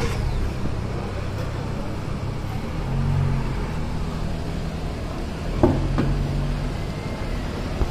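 A car engine running at low speed, a low steady hum in street traffic, with a short knock about five and a half seconds in.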